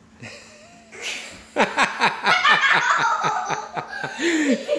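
A young girl laughing hard: a quick run of giggles, several a second, that starts about a second and a half in.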